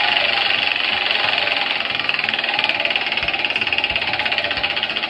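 A spinning prize wheel ticking rapidly as it turns, the ticks slowing slightly toward the end.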